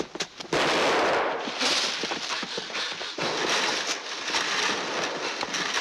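Sharp cracks of gunfire over the rustling and crashing of people running through forest undergrowth. A cluster of cracks comes in the first half-second.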